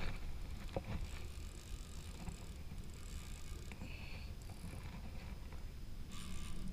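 Wind on the microphone and water against a plastic kayak at sea, a steady low rumble with a few light knocks and clicks from the rod and kayak fittings about a second in.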